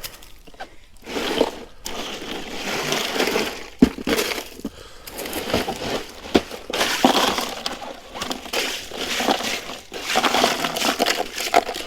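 Ice clinking and crunching in a cooler as a large snapping turtle is packed in on it, with scraping and a sharp knock about four seconds in.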